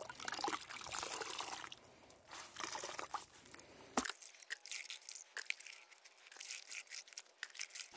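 Wet cloth diapers worked by hand in a plastic bucket of water: irregular splashing and dripping as they are lifted and dunked. A single sharp knock about halfway through.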